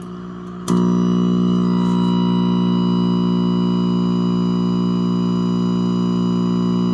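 Loud steady electrical buzz from the speaker of a 1962 Packard Bell color tube television, stepping suddenly louder about a second in and then holding steady, with a faint very high thin whine on top.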